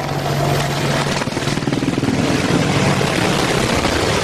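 Helicopter engine and rotor noise. A steady low hum gives way about a second in to a fast, rough chopping.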